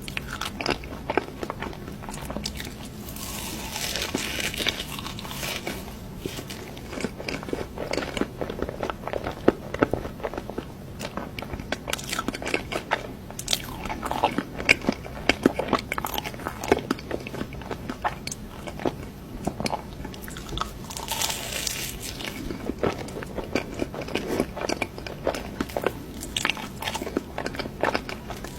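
Close-miked ASMR eating of cake: bites and chewing with many irregular sharp clicks and crunches.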